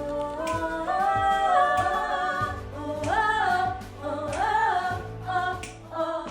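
A women's vocal group singing in harmony, held notes stepping up and down together, over backing music with a low bass and a beat.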